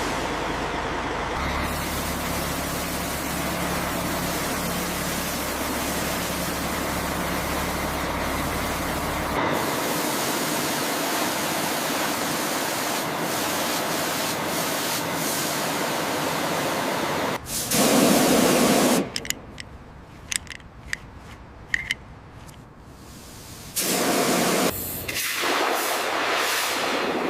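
Water spraying from a pressure washer in a steady, loud hiss, with a low machine hum under it for the first several seconds. Past the middle the sound changes abruptly several times: a short loud burst, a quieter stretch with scattered clicks, another loud burst, then the spraying hiss again.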